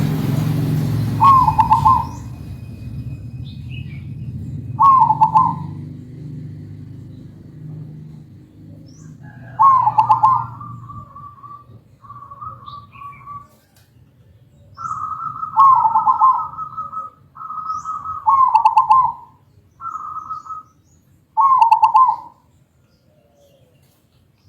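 Zebra dove (perkutut) cooing: short, loud coo phrases repeated every few seconds. In the second half they are joined by longer, slightly higher held notes between the phrases.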